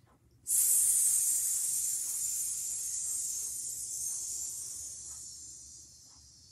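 A woman hissing on one long, drawn-out exhale, starting about half a second in and slowly fading away over some six seconds: snake breathing, a yoga breathing exercise that stretches the exhale as long as possible.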